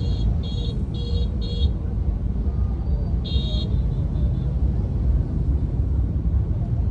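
Low rumble of the car and the road traffic around it, heard from inside the car's cabin in slow traffic. A quick run of five short high-pitched beeps comes in the first two seconds, and one more about three seconds in.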